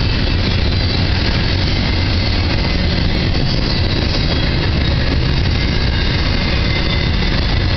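Double-stack intermodal container cars of a freight train rolling past on the rails. It makes a steady, unbroken noise that is heaviest in the low end.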